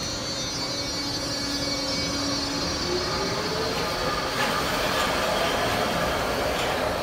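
Baltimore Metro subway train pulling out of the station, its DC traction motors under chopper control whining. A high whine fades over the first couple of seconds, then a low motor tone rises steadily in pitch from about three seconds in as the train gathers speed, with the wheel and rail noise growing louder.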